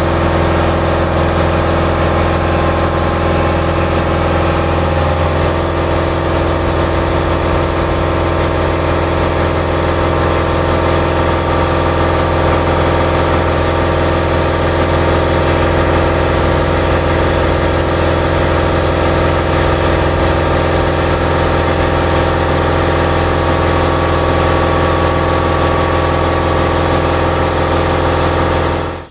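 Air compressor running steadily, a hum of several held tones, under the hiss of a spray gun spraying paint. It stops abruptly at the very end.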